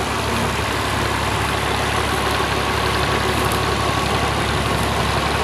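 Engine of a tubewell boring machine running steadily with an even hum.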